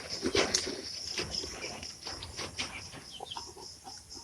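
Chickens clucking faintly over a steady high insect drone, with scattered soft crackles.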